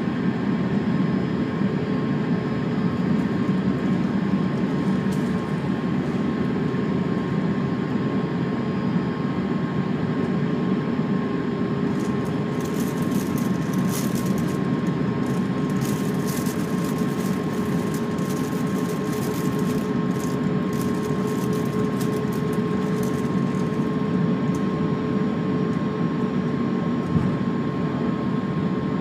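Steady cabin drone inside an Airbus A350-900 on the ground before takeoff, with two steady tones over the noise and no spool-up. A spell of faint crackling comes through in the middle.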